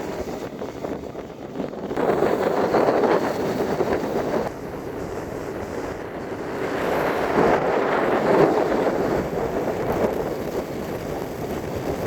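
Wind buffeting the microphone in gusts, a rushing noise that swells louder twice, a couple of seconds in and again past the middle.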